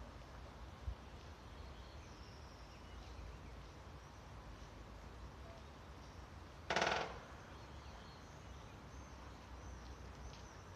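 Woodpecker drumming: one short, very rapid roll of knocks about two-thirds of the way through, with faint high bird chirps in the background.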